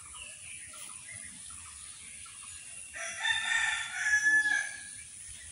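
A rooster crowing once, a call of about a second and a half starting about three seconds in, over faint small-bird chirps.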